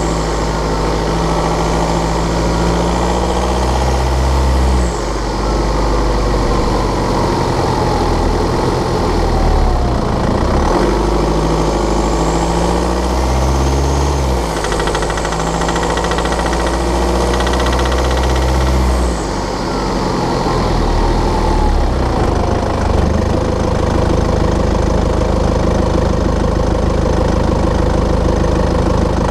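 BMW 520d's N47 four-cylinder diesel engine running, its note shifting several times. This is the rattling/ticking noise that shows when the engine is cold and under load around 1500 rpm, traced to a faulty fuel injector.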